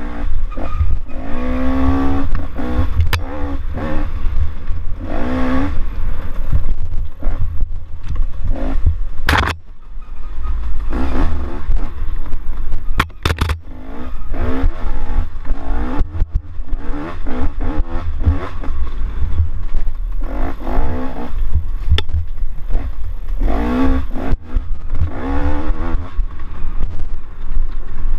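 Off-road racing vehicle's engine heard close from a camera mounted on it, revving up and dropping back over and over as the throttle is worked along a bumpy dirt trail, with heavy wind and bump rumble. A few sharp knocks come about a third of the way through and again just before halfway.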